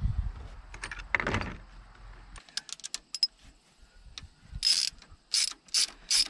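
Hand socket ratchet with an 11 mm socket clicking in a series of short bursts, backing out the carburetor's mounting bolts. There are a few scattered clicks first, and the bursts come thickest and loudest in the last two seconds.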